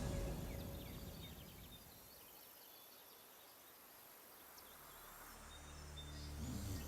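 Faint outdoor ambience with a few small high chirps from birds or insects, between background music fading out at the start and low sustained music tones fading in during the last two seconds.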